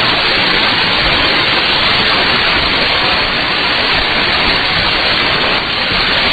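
Steady hiss and static of a shortwave AM signal on 17640 kHz received through a software-defined radio, with no programme audio on it yet.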